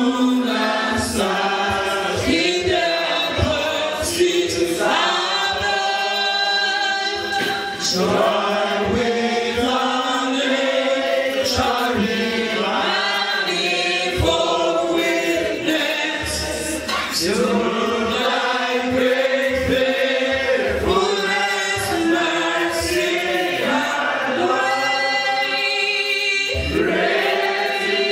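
Church congregation of men and women singing a hymn together in sustained phrases.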